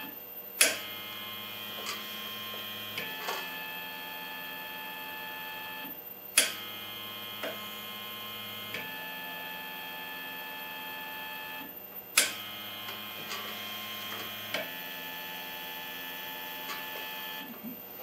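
Prototype ventilator's stepper motor and timing-belt drive running three breath cycles in trigger mode, each set off by a breath drawn on the patient hose. Each cycle opens with a sharp click, the motor whines steadily for about two and a half seconds on one stroke, then changes pitch for the return stroke, and it pauses briefly before the next click.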